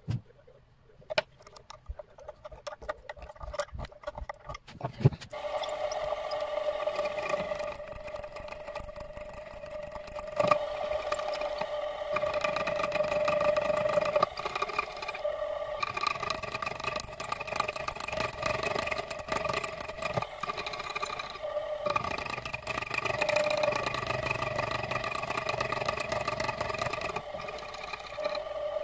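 A few sharp clicks and knocks, then from about five seconds in a machine runs with a steady whine.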